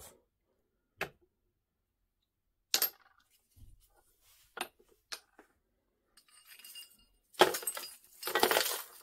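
Cast aluminium ingots set down one on another, clinking, with a few lighter knocks. Near the end comes the loudest part: a clatter of small lumps of aluminium dross dropped in among the bars.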